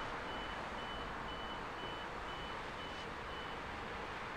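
Electronic warning beeper sounding a high, even beep about twice a second, stopping about three and a half seconds in, over a steady rushing noise.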